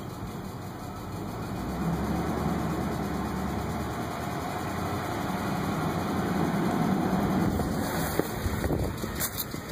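2005 Ford F-150's 5.4-litre three-valve V8 idling with a knock/tick from seized hydraulic lash adjusters (lifters).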